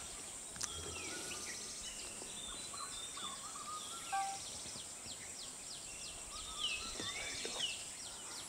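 Forest ambience: a steady high insect buzz with many birds calling throughout, quick downward-sweeping notes and short chirps.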